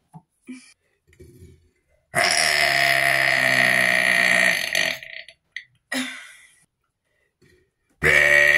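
A person burping: one long, loud burp lasting about three seconds, a short burp about six seconds in, and another loud burp starting near the end.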